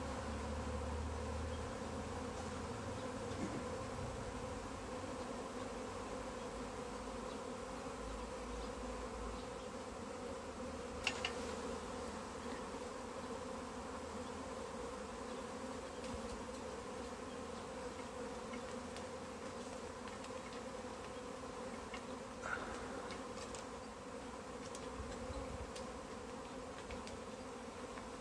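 A honeybee swarm clustered on a tree branch, buzzing: the steady hum of many bees. A couple of brief clicks come through, one about a third of the way in and one later.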